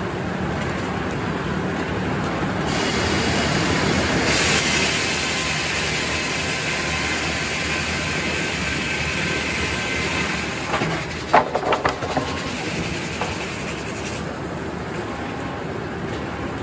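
Circular sawmill head saw cutting a white oak log as the carriage feeds it past the blade: the mill's steady running noise swells into a harsher cutting sound about three seconds in and drops back near the end. A few sharp knocks come about eleven seconds in.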